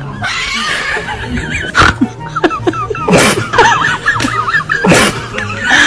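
Background music with a steady bass line, overlaid by many short wavering animal calls and three short sharp noises, about 1.8, 3.3 and 5 seconds in.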